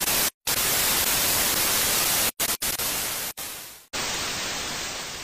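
Steady white-noise hiss like TV static, cutting out suddenly for short moments several times, then dropping back in with a slightly different hiss about four seconds in and fading out near the end.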